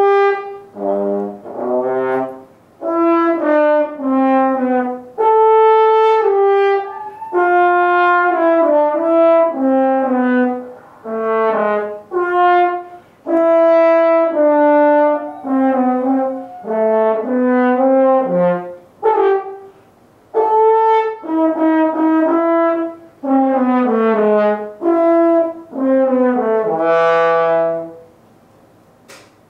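French horn being practised: a string of held notes and short phrases at changing pitches, with short pauses between phrases, stopping near the end. A single short click follows.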